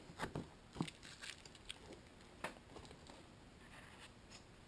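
Faint scattered rustles and light taps of a cardboard box, its foam insert and plastic packaging being handled by hand, with a few small knocks in the first half.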